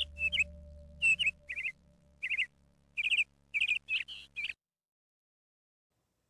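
Background music: a soft sustained drone with bird chirps laid over it, short falling chirps in quick runs. It cuts off abruptly about four and a half seconds in, leaving silence.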